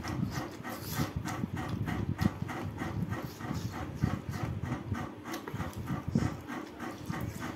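Close, wet open-mouthed chewing and lip-smacking of a person eating pork trotter and rice by hand, in a quick, steady rhythm.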